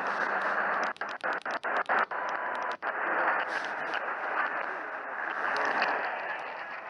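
Radio static from a receiver: a steady hiss with several brief dropouts in the first three seconds, typical of a weak broadcast signal.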